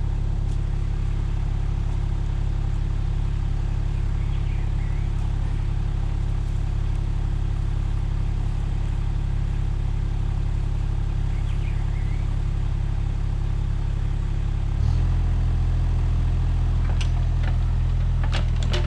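Mini excavator engine running steadily. About fifteen seconds in, its note shifts and gets slightly louder, as if the revs or load change. A few sharp knocks come near the end.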